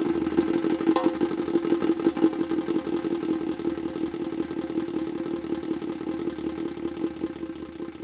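Djembe played by hand in a fast, continuous roll of strokes over a steady low ring from the drumhead, getting gradually quieter over the last few seconds.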